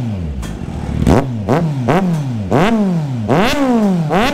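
Kawasaki Z900's inline-four, exhaust with the catalytic 'breadbox' removed, revved in a string of quick throttle blips: about six sharp rises in pitch, each falling back toward idle, roughly one every half second, the highest a little past three seconds in.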